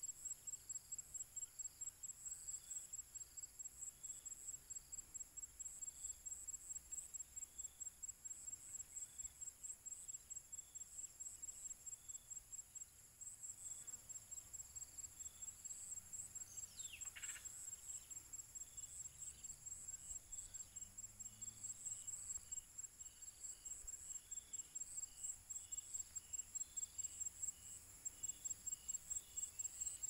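Crickets chirping steadily in a high-pitched pulsing trill, a few pulses a second, with fainter spaced pips from other callers. About seventeen seconds in, a single bird call falls sharply in pitch.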